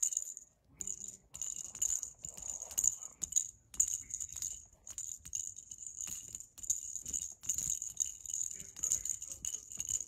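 A small bell jingling and rattling in quick, irregular shakes with short breaks between them.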